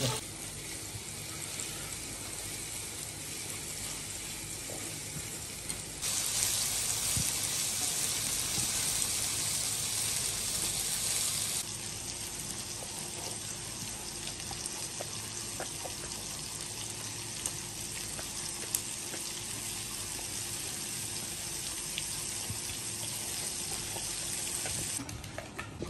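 Meat skewers sizzling on a grill: a steady hiss with a few faint crackles, louder for about six seconds from about six seconds in.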